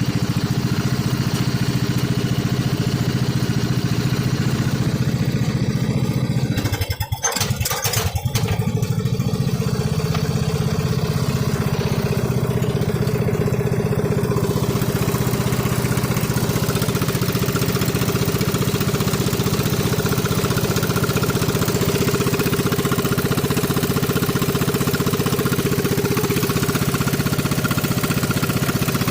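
Small lawnmower engine running steadily, faltering briefly about seven seconds in before carrying on at the same pace.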